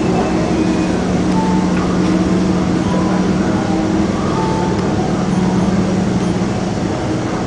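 Ferry's engines droning steadily, heard inside the passenger cabin: a constant low hum over an even rushing noise.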